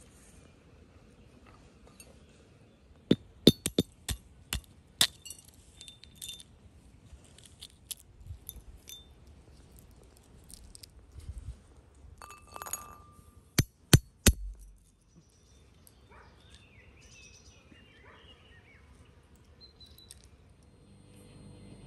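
Walnuts being cracked with a brass pestle on a brass tray: a quick run of sharp cracks and metallic clinks a few seconds in and another around the middle, one strike leaving a short ringing tone. Softer ticks of shell being picked apart come in between.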